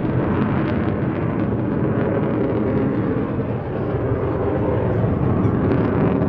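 Saab SK 35C Draken jet fighter's single turbojet engine in flight: a loud, steady, deep jet rumble with a slight dip in level about halfway through.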